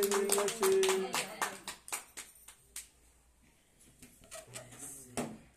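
A few people clapping by hand along with voices, the clapping thinning out and stopping about three seconds in.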